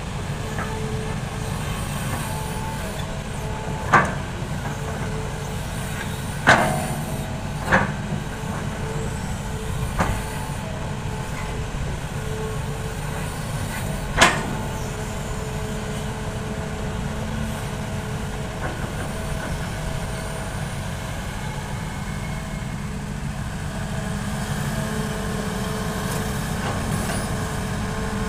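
Hitachi hydraulic excavator's diesel engine running steadily while digging and loading soil into a dump truck, with five sharp knocks scattered through the first half.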